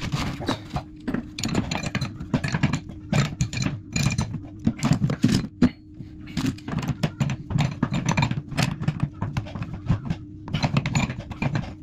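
Irregular metal clicks, taps and scrapes of hands and water-pump pliers working the pipe fitting and isolation valve under a toilet cistern.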